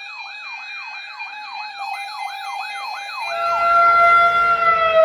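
Electronic siren sounding a fast yelp: quick falling sweeps, about three a second. A little over three seconds in, it switches to a steady held tone, and a low rumble builds underneath.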